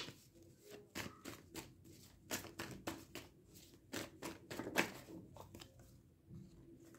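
Tarot cards being shuffled and handled by hand: a string of irregular soft clicks and snaps as the cards slide against each other.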